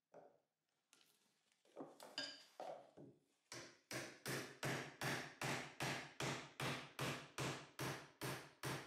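Hammer striking a wood chisel set against the bottom of a wooden skirting board, cutting into it. A few scattered blows come first, then from the middle on a steady run of sharp knocks, about three a second.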